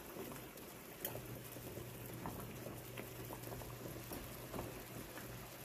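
Water boiling hard around sausages in a frying pan, a steady bubbling hiss with many small pops. This is the parboiling stage, before the water boils away. A low steady hum comes in about a second in.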